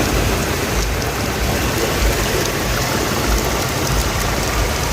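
Heavy rain pouring steadily, a dense even hiss with an irregular low rumble underneath.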